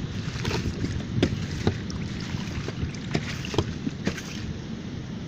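A plastic bag of ice being handled and laid over fish in a cooler: several sharp crinkles and knocks at uneven intervals. Under them runs a steady low rush of wind.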